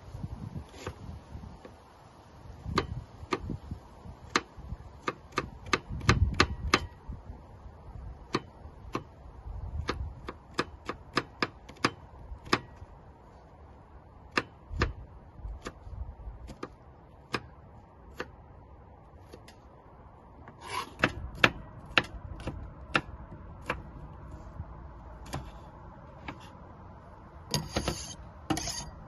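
Chef's knife chopping onion on a wooden cutting board: irregular sharp knife strikes, at times in quick runs of several a second. Near the end, a short scraping burst as the chopped onion is scraped off the blade into a ceramic bowl.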